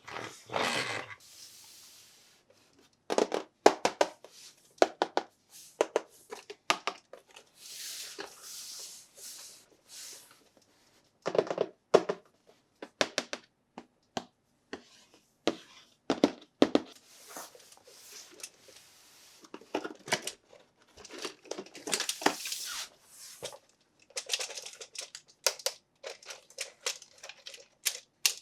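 Toy packaging being handled and opened: irregular bursts of crinkling, tearing and sharp plastic clicks and taps, with short pauses between them.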